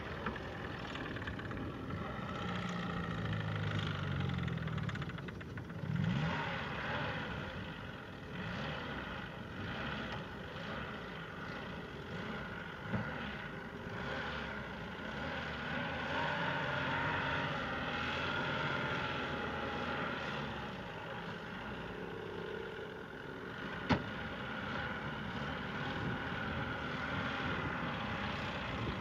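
Car engine running as the car drives slowly over rough ground, its pitch rising and falling a few seconds in. One sharp knock stands out near the end.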